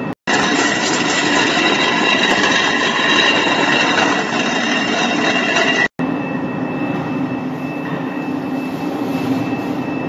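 Two walk-behind concrete floor grinders running, their diamond grinding plates with double buttons working the concrete: a loud, steady grinding noise with a high, steady motor whine. The sound drops out for a moment about six seconds in, then carries on a little duller.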